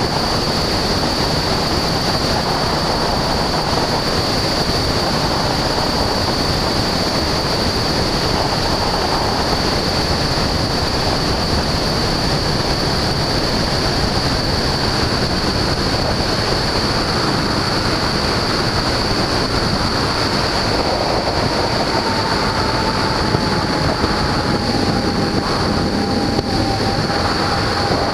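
Steady in-flight noise of a Husky A-1C light aircraft: the engine and propeller running at a constant setting under the rush of wind on the microphone, with a steady high whine over it. A fainter thin tone comes in about two-thirds of the way through and slides slightly lower.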